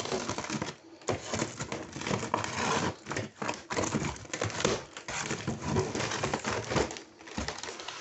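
Clear plastic stretch wrap around a cardboard shipping box crinkling and rustling, with many small clicks, as the box is handled and unwrapped.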